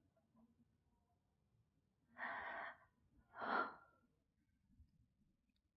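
A person breathing heavily: two loud, breathy breaths in quick succession, about two seconds in.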